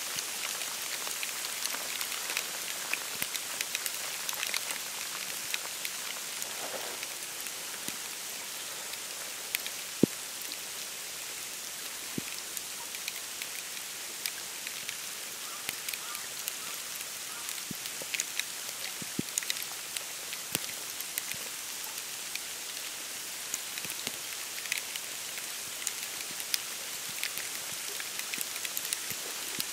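Wet snowfall pattering on dry reeds, bare branches, the boardwalk and the open water of a wetland: a steady hiss made of many small ticks, with one sharper tick about ten seconds in.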